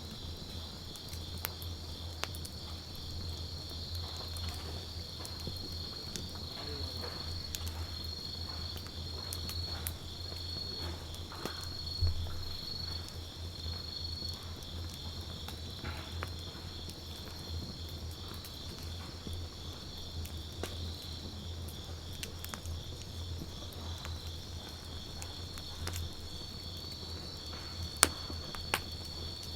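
Wood campfire crackling with scattered small snaps and two louder pops, one midway and one near the end, over the steady pulsing trill of insects.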